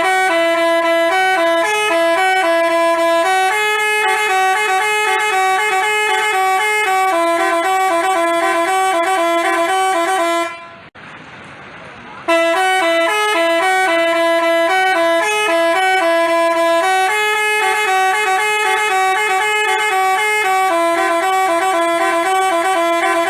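Basuri 'telolet' multi-tone musical horn playing a melody of steady, stepping horn notes. It breaks off about ten and a half seconds in, then plays the same tune again a second and a half later.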